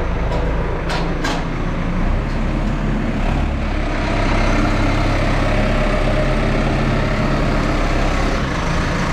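New Holland T5050 tractor's four-cylinder diesel engine running steadily at low revs, with a couple of sharp clicks about a second in.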